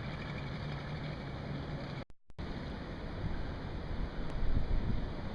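Wind on the microphone and water around a boat, with a boat motor's low steady hum during the first second or so. The sound drops out briefly about two seconds in, then returns as rougher wind rumble.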